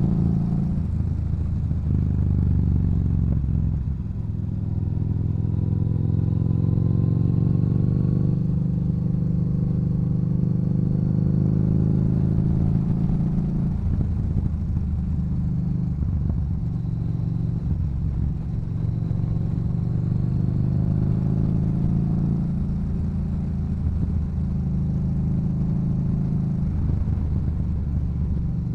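Yamaha Bolt's air-cooled 942 cc V-twin running through a Cobra aftermarket exhaust under way, pulling up in pitch and easing off several times as the throttle is opened and rolled back.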